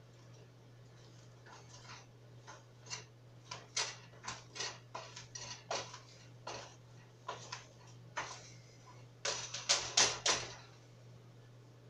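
Irregular small clicks and light knocks of kitchen things being handled at the stove, ending in a quick run of about five louder knocks. A steady low hum runs underneath.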